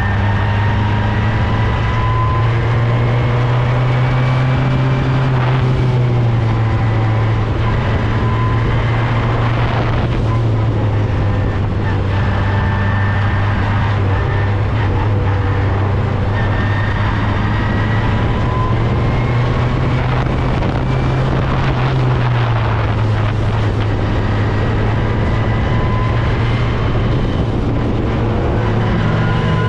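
Open-wheel single-seat race car's engine at speed on a track, its note rising and falling again and again as the car accelerates, shifts and slows through the corners. Wind buffets the onboard microphone.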